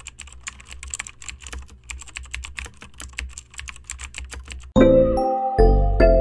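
Keyboard-typing sound effect: a quick run of clicks, about seven a second, as title text is typed out letter by letter. About three-quarters of the way through the clicks stop and loud music with sustained notes begins.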